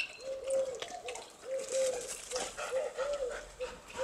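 Birds cooing: a steady run of short, low, rounded notes, two or three a second, some overlapping as if from more than one bird, with faint clicks and scuffs underneath.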